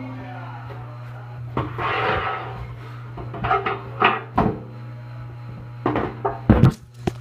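Knocks and scrapes of handling right at the microphone of a phone lying face down on a table, about seven irregular hits, over a steady low hum.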